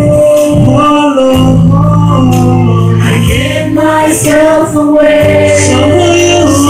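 A man and a girl singing a gospel worship song into microphones over amplified instrumental accompaniment, with long held low notes beneath the sung melody.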